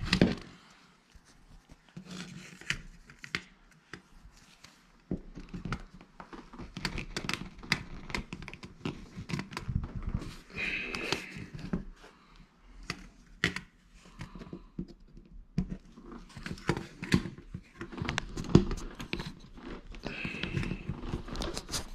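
Irregular scraping, clicks and crunches of a screwdriver tip being pushed and twisted into drywall through a thermostat's plastic base plate, poking new mounting holes, with the plate and its wires knocking as they are handled.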